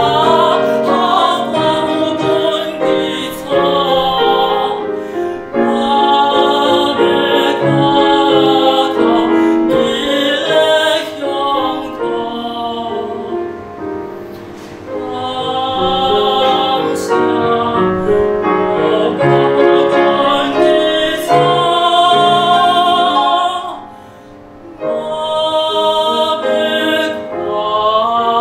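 Male classical singer performing an art song in operatic style with strong vibrato, in phrases, to grand piano accompaniment. The sound drops briefly to a quiet pause about four seconds before the end, then the voice comes back in.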